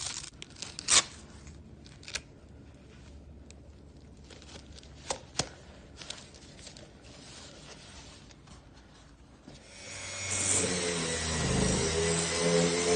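Scattered clicks and rustles of handling, then about ten seconds in the HYCHIKA 5-inch random orbital sander's electric motor starts up and runs, a steady hum with a hiss over it.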